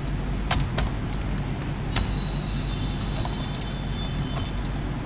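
Computer keyboard keystrokes: a few sharp key clicks, two about half a second in and one about two seconds in, over a steady low hum.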